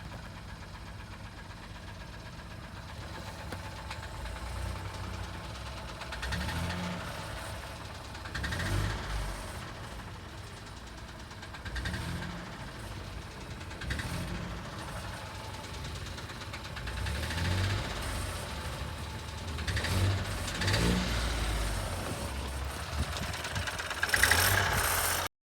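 Ford Fiesta 1.0 EcoBoost three-cylinder turbocharged petrol engine running with a knocking noise, blamed on improper maintenance. The engine rises and falls several times as if briefly revved, and the sound cuts off suddenly near the end.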